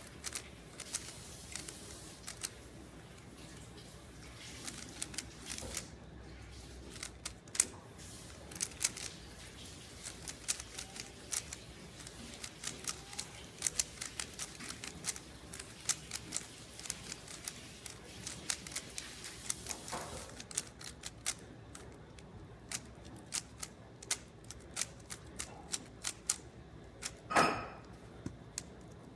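Rubik's cube layers being turned quickly, an irregular rapid clatter of plastic clicks. A louder, short sound with a pitch breaks in near the end.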